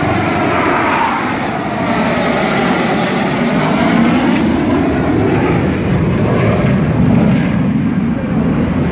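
Dassault Rafale fighter jet passing low overhead on its landing approach: a loud, steady jet engine roar with a sweeping, whooshing shift in pitch as it goes by.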